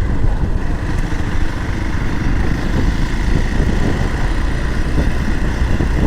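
Motorcycle being ridden along the road, a steady loud rumble of engine and road noise.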